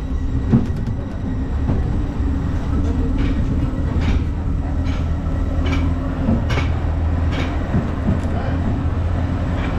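Train running on rails: a steady low rumble with evenly spaced clicks from the wheels crossing rail joints, a little under one a second, starting a few seconds in.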